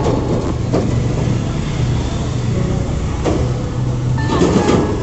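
Steady low hum with a few short metal clinks from a wrench working the oil drain bolt under a scooter engine.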